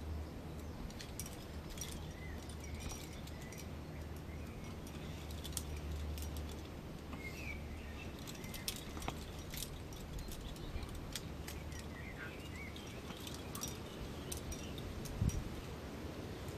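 Outdoor ambience: birds chirping now and then over a low wind rumble, with scattered light clicks and one dull thump near the end.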